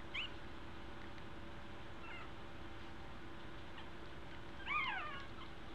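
Two-week-old American Eskimo puppies squeaking and whining: a short high call near the start, another about two seconds in, and a louder wavering whine about four and a half seconds in that falls in pitch.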